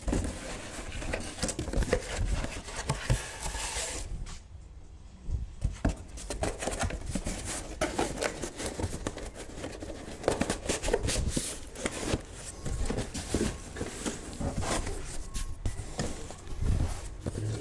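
Box cutter slicing the packing tape on a cardboard shipping box, then cardboard flaps and an inner box scraping, rustling and knocking as the box is pulled open and unpacked.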